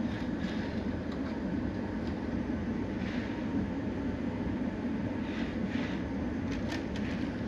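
HO scale model train running steadily along the track, a continuous low rumble of the locomotive's motor and the wheels rolling.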